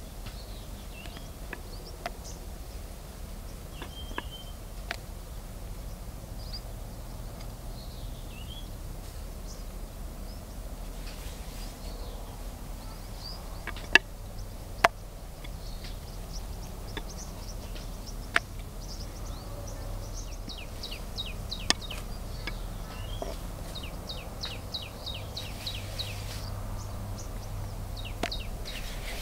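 A wooden rolling pin rolling out flatbread dough on a wooden board, with a few sharp knocks of wood on wood, the loudest two close together about halfway through. Birds chirp throughout, and a fast high ticking call runs through the last third.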